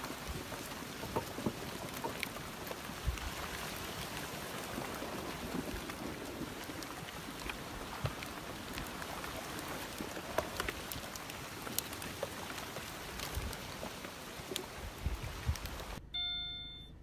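Rushing flash-flood water, a steady churning rush dotted with scattered knocks and clicks. Near the end it cuts suddenly to a repeating electronic beep.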